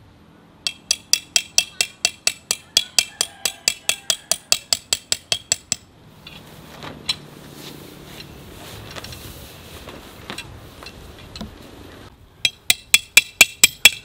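Hand hammer driving a tent peg into the ground to anchor a flysheet guy line: rapid ringing, clinking strikes, about four a second for some five seconds. After a pause of several seconds the hammering starts again near the end.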